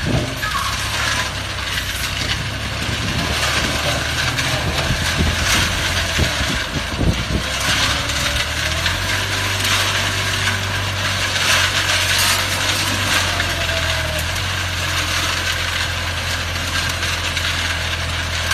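Self-loading concrete mixer truck's diesel engine running, with a continuous rattle and clatter over it. The low engine note steadies and grows stronger about nine seconds in.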